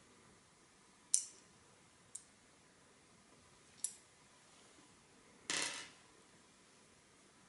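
Small hardware being handled: sharp clicks from an adjustable cockspur window handle, its plastic spacer wedges and small screws, three clicks with the first the loudest, then a brief scrape about five and a half seconds in.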